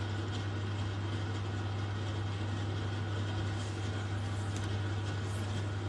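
A steady low hum with a faint even hiss above it.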